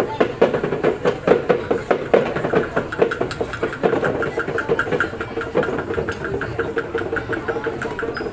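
Drum accompaniment for a Minahasan Maengket dance, beaten in a steady, fast rhythm of about four strokes a second over a sustained droning tone.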